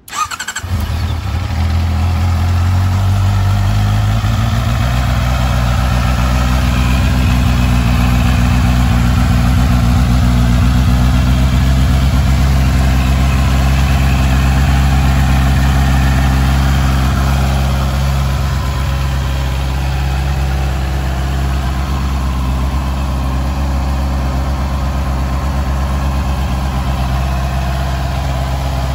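Honda CBR650R's inline-four engine on its stock exhaust starting from cold: it catches right away and settles into a steady, loud idle that eases off slightly about two-thirds of the way through.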